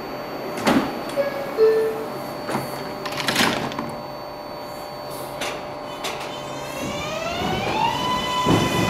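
An R142A subway train departing: a short two-tone falling door chime and the knocks of its sliding doors shutting, then, about seven seconds in, the whine of its traction motors rising in pitch as the train starts to move, levelling off near the end.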